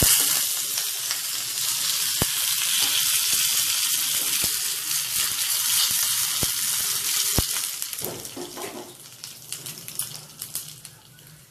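Hot oil sizzling as curry leaves hit it, for a tempering with dried red chillies in a small steel pan. The hiss starts suddenly, stays strong with a few sharp pops, and dies down from about eight seconds in.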